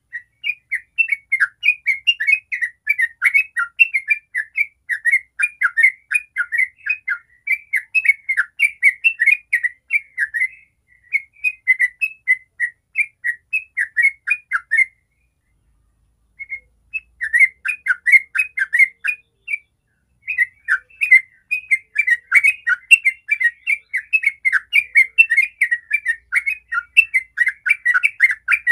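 Yellow-vented bulbul (trucukan) singing a long, rapid run of chattering notes, the continuous 'ropel' song, with a pause of about a second and a half around halfway through.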